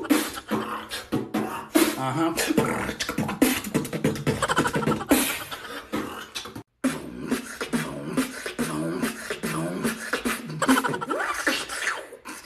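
Beatboxing: rapid mouth-made drum sounds mixed with short hummed, pitched tones, cutting out for a moment about halfway through.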